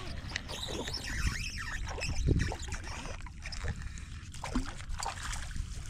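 Wind rumbling on a body-worn camera microphone, with scattered knocks and rustles from handling a spinning rod and reel; the loudest knock comes about two seconds in.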